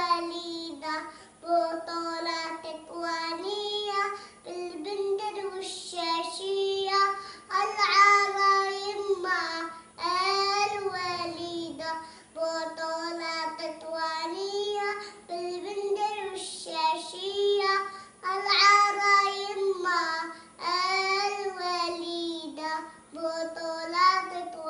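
A young girl singing solo and unaccompanied, in short phrases of a second or two with brief breaks between them.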